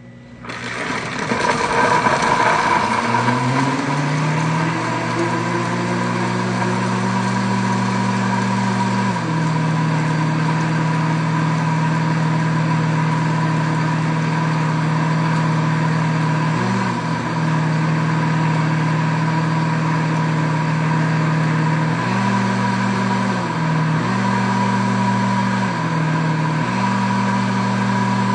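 Pampered Chef Deluxe Cooking Blender running its smoothie program, crushing ice and fresh peaches in wine and soda. The motor starts about half a second in and rises in pitch over the first few seconds, then runs loud and steady. In the second half its pitch dips and shifts several times as the program changes speed.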